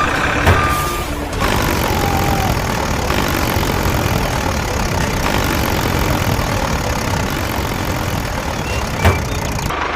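Steady engine or motor noise running throughout, with two brief knocks, one about half a second in and one near the end.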